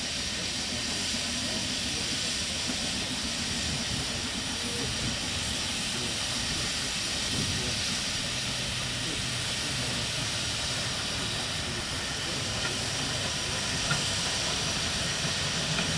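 Standing steam locomotive hissing steadily as steam escapes from it.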